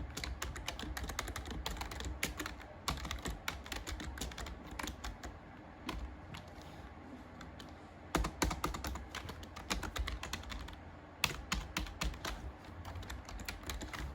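Typing on a mechanical keyboard: quick runs of key clicks. The typing thins out to a few scattered keystrokes in the middle and picks up again about eight seconds in.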